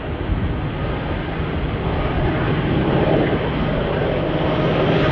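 NR class GE C44aci diesel-electric locomotive hauling a container freight train as it approaches, its engine's drone steady and growing gradually louder.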